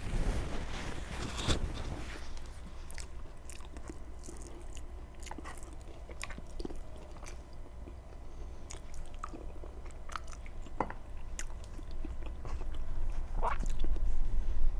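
A person chewing and biting food close to the microphone, with scattered wet mouth clicks and smacks, louder near the end.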